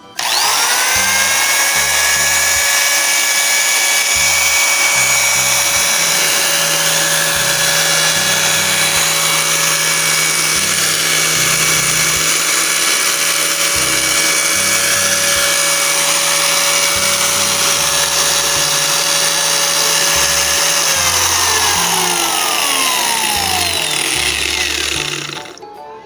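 Angle grinder switched on, its motor spinning up to full speed within a second and running free with a steady high whine, without cutting out, in a test run after repair for intermittent running. About 21 seconds in it is switched off and winds down over about four seconds.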